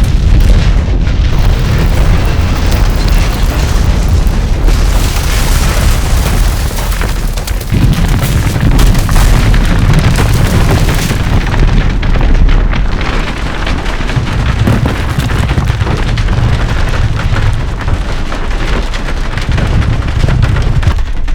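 Earthquake sound effect: a loud, continuous deep rumble with crashing, cracking debris over it.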